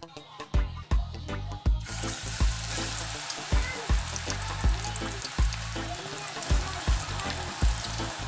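Sweet potato slices deep-frying in hot oil, a dense steady sizzle that starts about two seconds in. Background music with a steady kick-drum beat runs underneath throughout.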